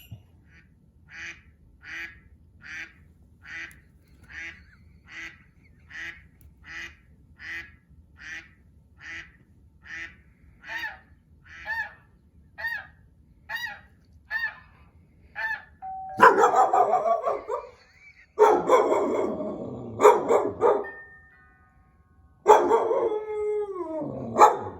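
A short pitched call repeating evenly, a little more than once a second, for about sixteen seconds. Then a Dalmatian dog bursts into loud barking and howling, in three long bouts with falling pitch.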